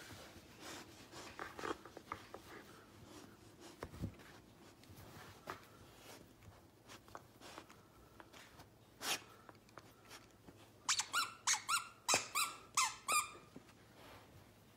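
Dog chewing a stuffed plush toy, its squeaker squeaking: soft mouthing and rustling at first, a single squeak a little past the middle, then a quick run of about eight short, sharp squeaks near the end.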